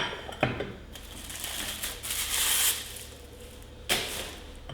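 Packaging crinkling and rustling as plates are unwrapped, with sharp knocks at the start and again about four seconds in.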